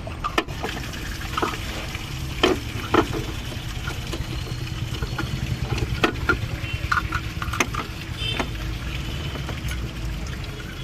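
Scattered metal clinks and knocks of hand tools and engine parts as a car's water pump is worked loose and pulled out, over a steady low hum.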